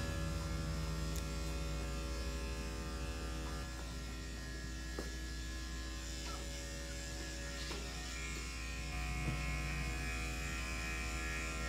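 Electric dog clippers running with a steady buzz while shaving a Yorkie puppy's matted coat down short.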